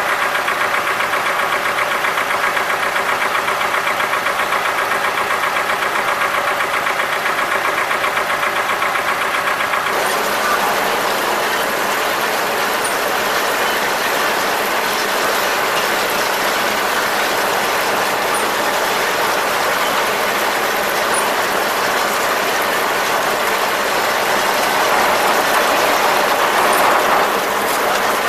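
Vintage tractor engine running steadily with an even firing rhythm while pulling a plough. About ten seconds in it switches abruptly to another old tractor's engine running rougher and noisier as it drives, growing a little louder near the end.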